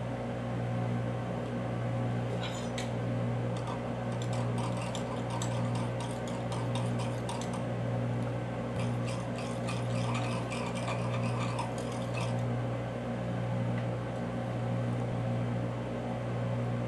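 Metal spatula stirring melted soft plastic in a glass measuring cup: two spells of quick light clicks and scrapes against the glass. Under it, the steady, slowly pulsing hum of a workshop ventilation fan.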